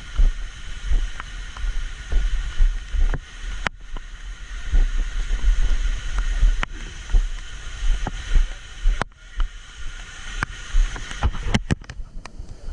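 Irregular low rumbling on a GoPro microphone, with scattered sharp clicks and knocks over a faint steady hiss.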